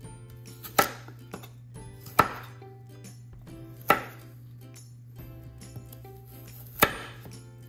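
Chef's knife cutting a peeled carrot into julienne strips on a plastic cutting board: four sharp chops of the blade hitting the board at uneven intervals, with lighter cuts between them.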